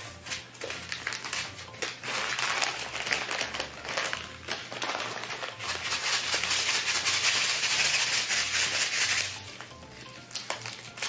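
Pop Rocks candy packets being crinkled and torn open by hand: a crackling rustle of many small clicks. It grows louder about halfway through and dies down near the end.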